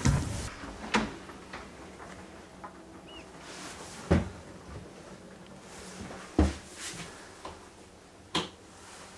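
A string of about six sharp knocks and clicks a second or two apart, from doors and latches being handled in a small cabin room.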